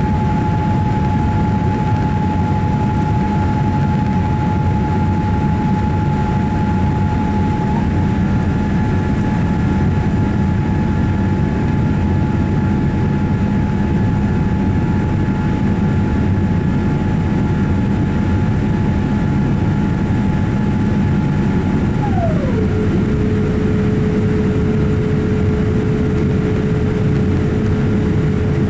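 Steady cabin noise of a Boeing 787-8 climbing after takeoff: a low rumble of engines and airflow, with a thin whine over it that glides down in pitch about 22 seconds in and then holds at the lower note.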